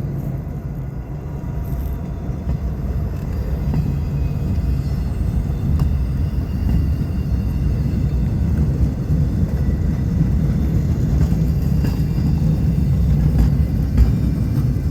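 Low, steady rumble of an approaching diesel train, growing slowly louder.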